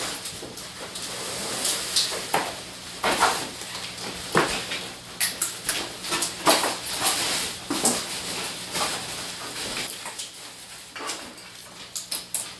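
Rustling and irregular knocks from unpacking and handling a new TV's packaging and parts.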